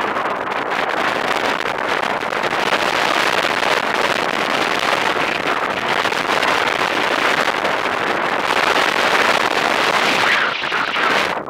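Steady rush of wind over a paraglider's camera microphone in flight, with no engine, dropping off sharply at the very end.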